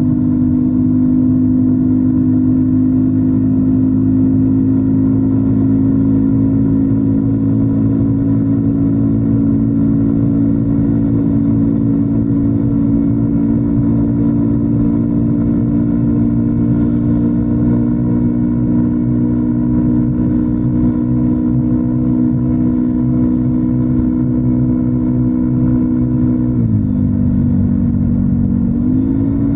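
Yamaha NMAX 155 scooter's single-cylinder four-stroke engine running through an aftermarket DS4 Daeng Sai4 ST1 muffler, holding steady revs at a cruise. About three seconds before the end the revs drop briefly as the throttle eases, then climb back.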